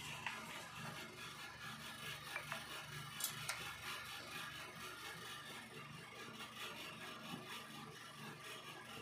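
Faint handling of a paper manual and packaging, with a few small clicks and taps.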